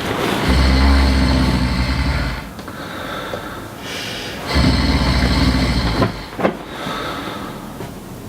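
A man snoring loudly in slow cycles: two long, rasping breaths in about four seconds apart, each followed by a quieter breath out with a faint high whistle.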